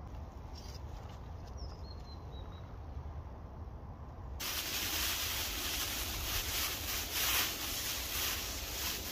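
Foil emergency blanket crinkling and rustling as it is handled and spread over a pole frame, starting abruptly about halfway in. Before that, only a low steady rumble.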